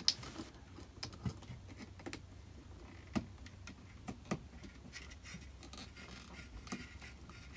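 Faint scattered clicks and ticks from hands twisting a wire nut onto the wires and handling a plastic LED ceiling fixture. One sharp click right at the start is the loudest.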